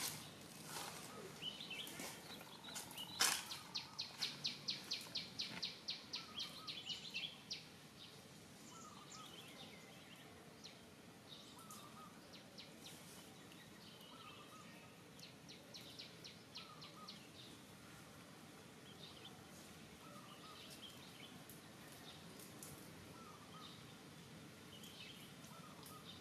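Birds calling outdoors over a faint hiss: a fast run of high chirps from about three and a half to seven and a half seconds in, then soft short calls repeating every couple of seconds. A sharp click comes just before the run of chirps.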